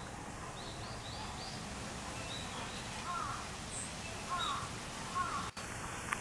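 Birds calling over a steady outdoor background hiss: a few short high chirps at first, then three brief calls spaced about a second apart in the second half, followed by a sharp click near the end.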